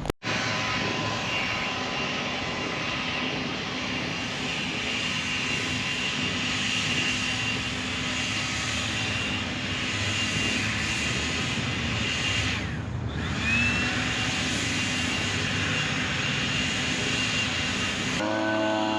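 Steady engine noise with a few steady hum tones, one passing sweep about thirteen seconds in, and a change to a different engine sound near the end.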